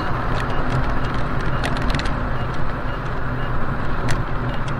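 Car driving at highway speed, heard inside the cabin: a steady drone of engine and tyres on the road, with a few light clicks.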